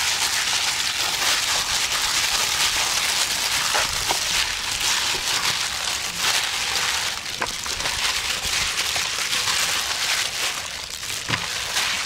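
Hands in thin plastic gloves kneading marinated raw pork: a steady crinkly, crackling rustle of the plastic with wet squishing of the meat, and a few faint clicks.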